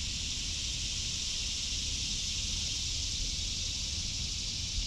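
A chorus of cicadas making a steady high-pitched buzz that holds without a break, with a faint low rumble underneath.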